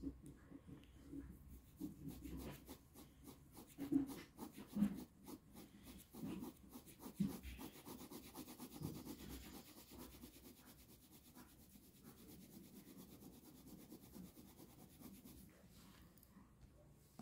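Ballpoint pen scratching and rubbing on paper in quick back-and-forth shading strokes. It is faint, and the strokes thin out near the end.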